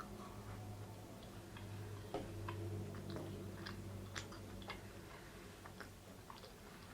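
Close-miked chewing: soft, irregular wet mouth clicks as a mouthful of pizza or breadstick is chewed, over a faint steady electrical hum.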